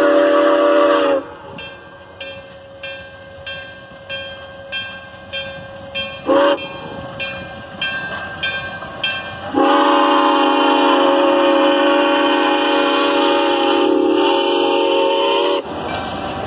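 Steam locomotive's chime whistle blowing a long blast that ends about a second in, a short toot about six seconds in, and another long blast of about six seconds. Between the blasts, the engine's exhaust beats about one and a half times a second, growing louder as it approaches. After the last blast comes the steady rumble of the train rolling past.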